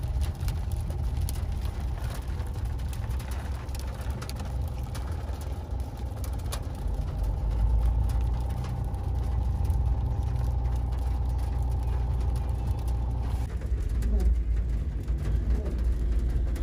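Car cabin while driving, with a steady low road rumble and many light ticks of volcanic grit and small stones falling with the rain onto the car's glass and body. A faint steady hum cuts off about three-quarters of the way through.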